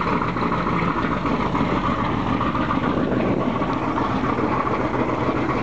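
Shvetsov ASh-82T fourteen-cylinder radial engine of an Ilyushin Il-14 running steadily at idle, heard from the other side of the aircraft.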